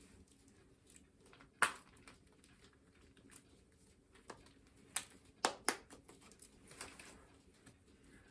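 A few scattered sharp clicks and taps over a quiet background: one loud click about one and a half seconds in, then a cluster of several more between about four and seven seconds.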